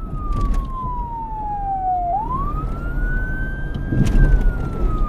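Police siren in wail mode: a single tone falls slowly, sweeps back up about two seconds in, then starts falling again. A low rumble of wind runs underneath.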